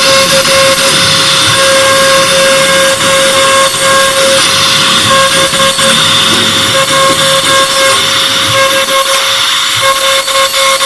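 CNC router spindle running and cutting a pattern into an MDF sheet: a loud, steady whine over a continuous cutting hiss.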